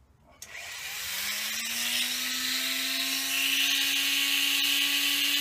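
Dremel rotary tool with a cut-off disc starting about half a second in, its whine rising as the motor spins up and then holding steady. From about three seconds in the disc cuts into the ash hollow form, adding a louder, brighter grinding hiss.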